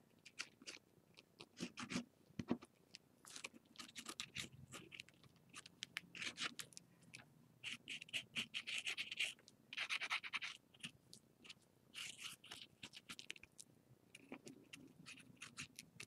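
White paint marker tip dabbing and scratching on a textured, paste-covered paper cutout: faint, irregular ticks and short scratchy strokes, a few longer ones around eight and ten seconds in.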